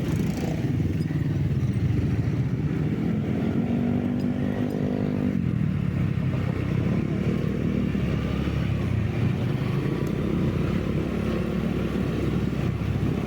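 Motor vehicle engine running with road noise while on the move, with a pitched engine note that holds for a couple of seconds about four seconds in and then cuts off abruptly.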